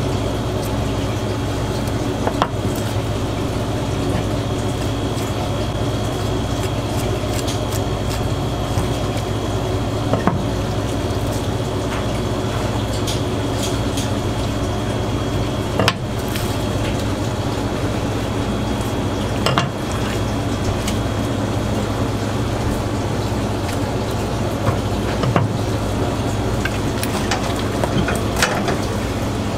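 Steady low machine hum with a thin high whine, over which a knife clicks and taps against a plastic cutting board a handful of times while a pufferfish is cut and skinned.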